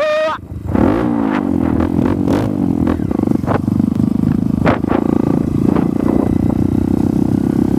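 Trail motorcycle engine heard from the bike itself: it drops away briefly about half a second in, picks up again with its pitch climbing, then runs steadily under way. Scattered knocks and rattles from the bike jolting over the rough dirt track run through it.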